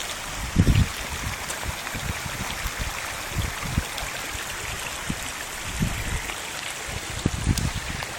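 Steady rain falling, an even hiss of water with a running, trickling quality, broken by a few brief low thumps.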